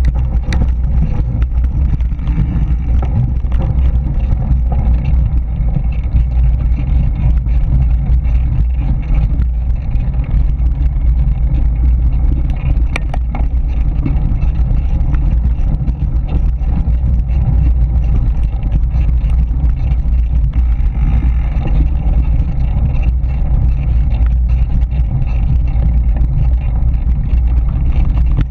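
Wind rumbling steadily and loudly on an action camera's microphone during a mountain-bike ride on a dirt trail, with a constant rattle of the bike and tyres over the loose ground.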